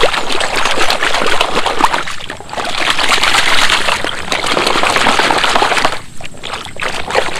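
Muddy water splashing and sloshing as a hand scrubs a toy cement mixer truck under the surface, easing off briefly twice.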